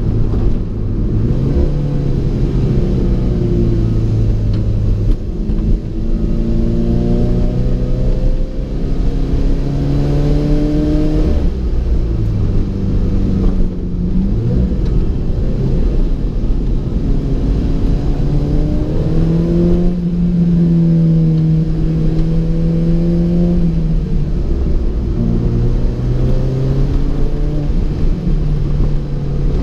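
Alfa Romeo 4C's turbocharged 1.75-litre four-cylinder engine pulling under load, its pitch climbing and then dropping sharply at gear changes several times. There is a longer steady-cruise stretch in the second half.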